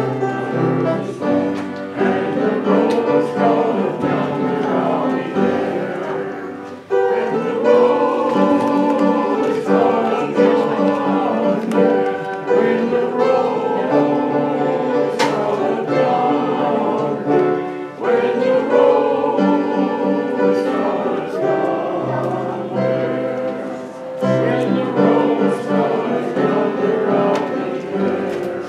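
Church congregation singing a hymn together with instrumental accompaniment, in sung phrases with brief breaks between lines.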